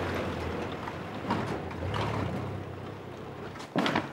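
A steady low hum with a rushing noise that slowly fades, then a brief knock near the end.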